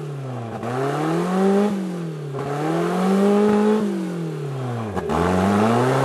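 Engine of a rock-crawling 4x4 revving up and down under load as it climbs a steep rock slab, rising and falling in pitch about three times.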